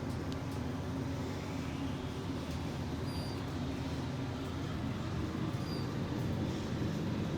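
Ventilation fan in a Kone elevator cab running steadily, over the hum of the car travelling up. Two faint short high beeps are heard, one about three seconds in and one about five and a half seconds in.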